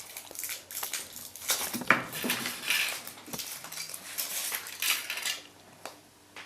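A Kinder Surprise egg being opened by hand: crinkling foil, and clicks and rattles of the plastic capsule and small toy parts. The handling goes on for about five seconds, then stops.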